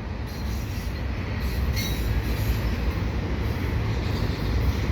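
Double-stack container freight train rolling past at speed: a steady rumble of wheels on rail, with a brief high squeal about two seconds in.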